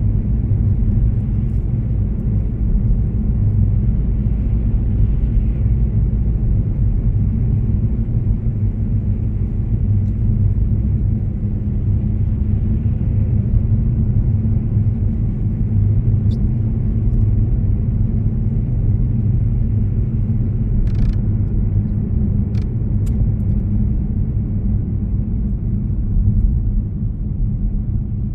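Car driving along a road: a steady low rumble of tyres and engine, with a few faint clicks in the second half.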